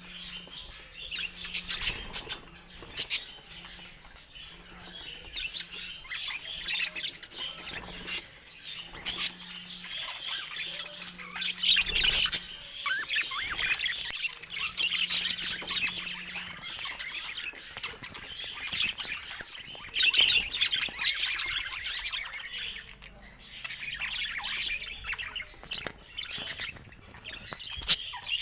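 Budgerigars chattering continuously, a dense run of high warbling calls with scattered sharp clicks.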